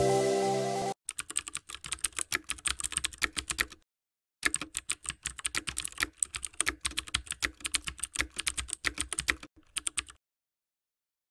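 Rapid computer-keyboard typing clicks, a sound effect for on-screen text typing itself out. They come in two runs with a short pause about four seconds in and stop shortly before the end. Fading music ends about a second in.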